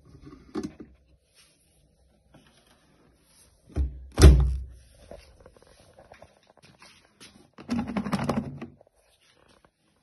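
Bosch front-loading washing machine door pushed shut with a heavy thunk about four seconds in, just after a smaller knock. About a second of plastic clattering follows near the end.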